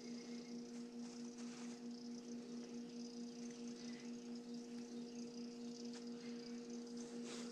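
Faint, steady hum of a freezer's compressor running, one low tone with a higher overtone, wavering slightly.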